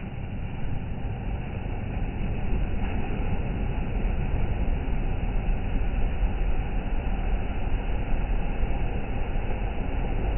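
Sea surf: a steady, rumbling wash of waves on the shore, growing a little louder about two seconds in.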